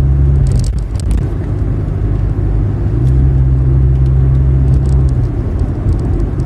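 Car driving along a road, heard from inside the cabin: a loud, steady low rumble of engine and road noise, with a deeper drone at the start and again from about three seconds in for about two seconds.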